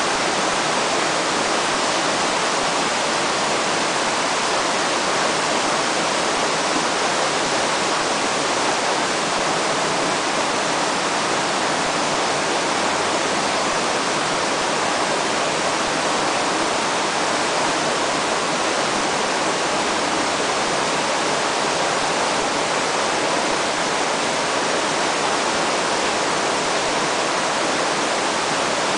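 Fast-flowing river current rushing steadily, an even, unbroken wash of water noise.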